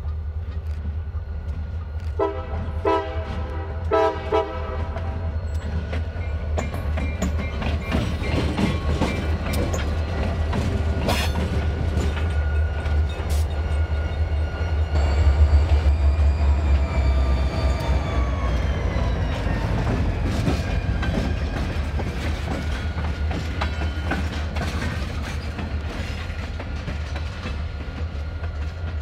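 Diesel freight locomotives sound two horn blasts a few seconds in, then roll slowly past with a deep engine rumble that is loudest about halfway through. A whine slides down in pitch as the units go by, with the wheels clicking over the rail joints.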